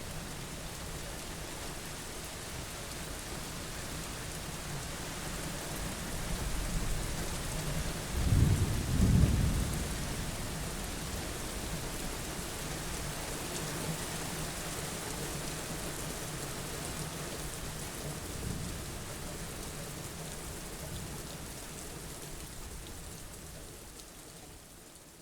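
Steady rain with rolling thunder; a louder low rumble of thunder swells about a third of the way in. The sound fades out near the end.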